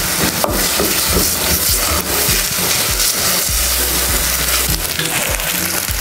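Minced beef sizzling as it fries in its own fat in an aluminium pot, with a wooden spoon stirring and scraping through it, over background music.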